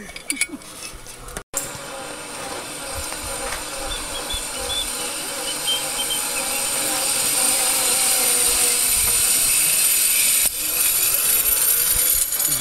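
Zip line trolley pulleys running along the steel cable, a steady whirring hiss that grows louder over several seconds as the rider approaches.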